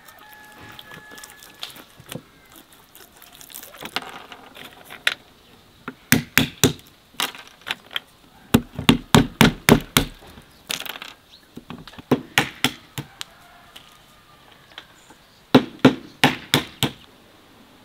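Walnuts being cracked open on a wooden block: bursts of sharp knocks and cracking shells, several strikes in quick succession each time, starting about six seconds in and recurring until near the end.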